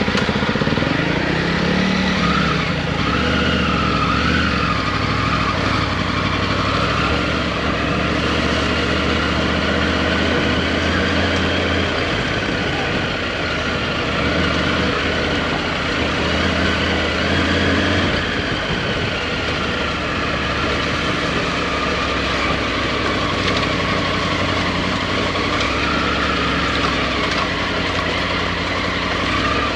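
Dual-sport motorcycle engine running under way, its revs rising and falling with the throttle.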